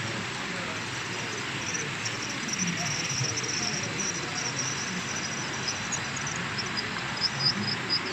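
OO-gauge model train passing close by: two Bachmann Class 57 diesel locomotives hauling Hornby Vee tank wagons, making a steady rolling rumble and rattle on the track. High-pitched squeaks come through and grow more frequent near the end.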